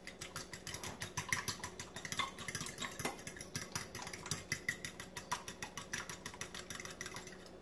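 A fork beating a raw egg in a small glass bowl, clicking against the glass in a quick, steady rhythm of about five or six strokes a second that stops near the end.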